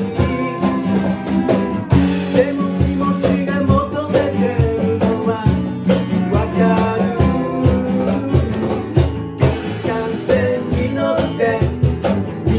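A band playing a lively song on guitars with a cajón keeping a steady beat, and a voice singing the melody.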